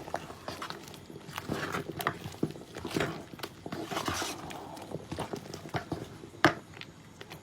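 Cooking utensils knocking and clicking against a pot, at an uneven pace of one to three a second. The sharpest knock comes about six and a half seconds in.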